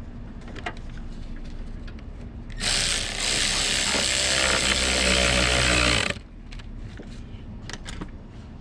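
A power tool runs for about three and a half seconds, starting and stopping abruptly, amid light clicks and knocks of parts being handled.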